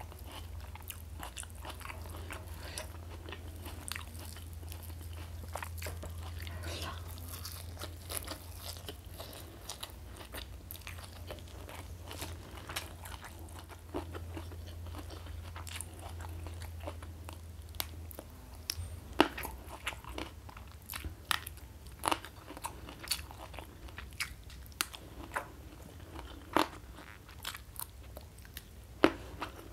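Close-miked eating sounds: wet chewing with crunchy bites. In the first part a low steady hum runs under the chewing and fades out about two-thirds of the way through. After that the crunches come as separate sharp snaps, one every second or so.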